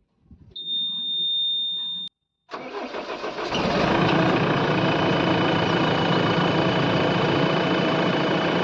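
JCB 3DX backhoe loader's diesel engine being started: a high, steady beep sounds over the cranking for about two seconds, then after a short break the engine catches and settles into a steady run.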